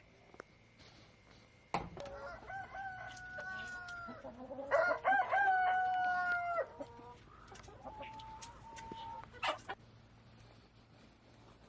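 Rooster crowing: two long crows one after the other, the second louder, then a fainter crow a few seconds later.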